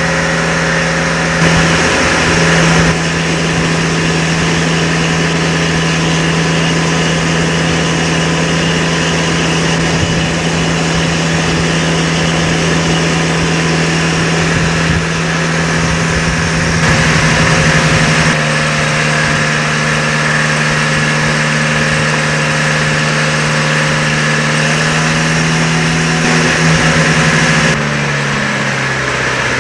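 Fishing boat's engine running steadily with a constant low hum. Near the end its pitch drops a little and it gets quieter as the engine slows.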